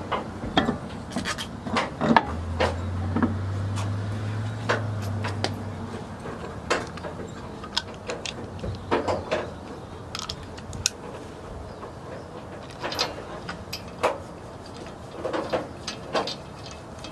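Lug nuts being threaded on and snugged down with a hand lug wrench on an alloy wheel: irregular metal clicks and clinks. A low steady hum runs underneath from about two to six seconds in.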